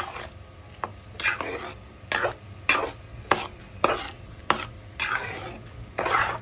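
A metal spatula stirring and scraping milky grated carrots in a steel kadhai. It makes a regular run of wet scrapes and light knocks against the pan, a little under two strokes a second.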